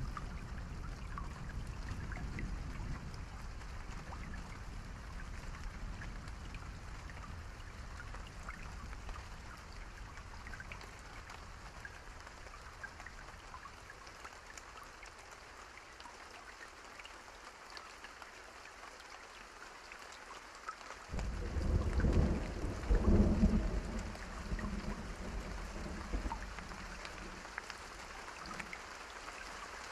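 Steady rain falling, a constant hiss with scattered individual drops. About two-thirds of the way through, a low rumble of thunder comes in suddenly, rolls for a few seconds as the loudest sound, then dies back into the rain.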